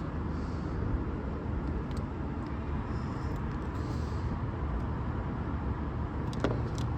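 Steady low background rumble, with a single faint click about six and a half seconds in.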